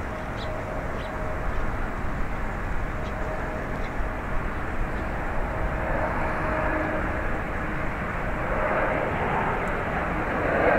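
Boeing 787-8's GE GEnx-1B64 turbofans at takeoff power: a steady jet roar with a faint steady whine, swelling slightly near the end.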